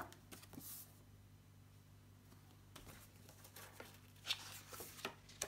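Faint rustling of paper pages being turned in a paperback book, with a few soft clicks and short swishes over quiet room tone.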